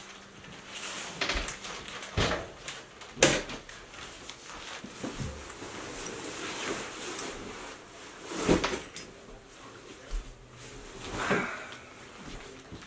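Someone moving about a small bedroom: a sharp knock about three seconds in, as of a door shutting, then rustling as a jacket is pulled off and soft thumps as he sits down on the bed.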